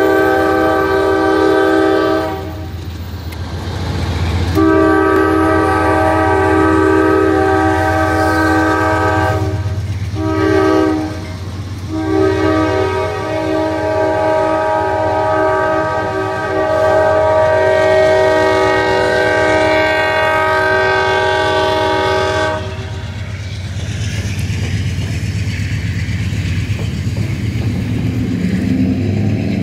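Freight locomotive's air horn sounding the grade-crossing signal: two long blasts, a short one, then a long blast held for about ten seconds. After the horn stops, about three-quarters of the way through, the train's cars go on rumbling past.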